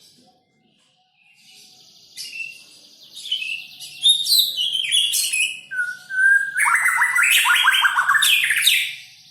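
White-rumped shama (murai batu) singing a loud, varied song of whistled phrases and rapid trills, after a brief pause about a second in; the fastest, loudest run of repeated notes comes near the end.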